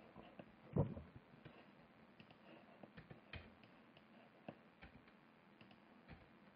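Faint, scattered clicks of a computer mouse and keyboard, with one louder thump about a second in.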